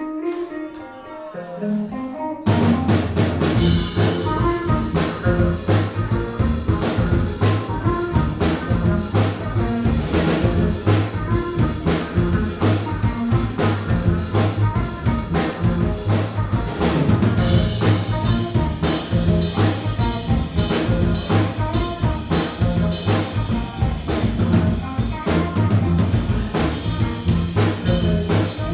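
A live band playing. Pitched notes sound alone for the first couple of seconds, then the full band comes in loud with drums and bass and plays on steadily.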